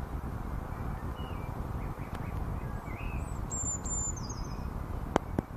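Wind rumbling on the microphone, with small birds chirping, including a high, quick trilled call a little past the middle. Two sharp clicks near the end.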